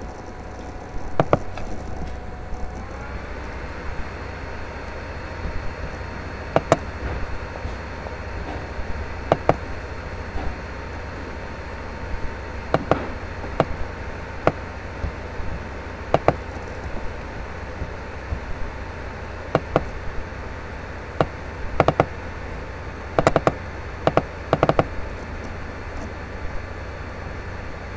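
Steady low hum with a faint steady tone, broken by sharp taps or knocks at uneven intervals, roughly one every two seconds, with a quick cluster of them near the end.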